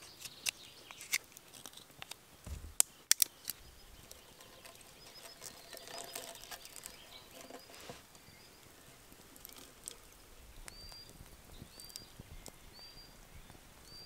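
Knife working a stick over a campfire: sharp clicks and snaps of wood, loudest about three seconds in, then soft handling as a metal kettle is hung over the fire. In the second half a short high chirp repeats about once a second.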